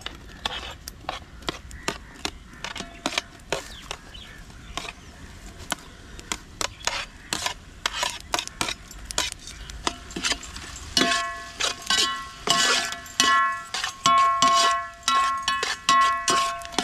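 A steel spoon knocking and scraping against a steel plate and a large metal cooking pot as chopped tomatoes are tipped in and stirred, a run of sharp clicks. About two-thirds of the way through, the strikes turn into repeated ringing clangs of the pot.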